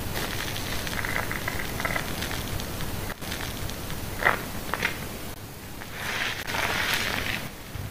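Shampoo lather crackling and squishing as plastic-gloved fingers massage it around the ear, with a couple of sharp wet squelches about halfway through and a louder rubbing hiss near the end.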